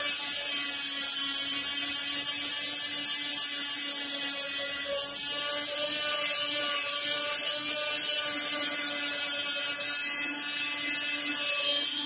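Oscillating multi-tool with a triangular grit-coated pad grinding rust off a steel bar: a steady buzz from the tool with a hissing scrape of the abrasive on the metal.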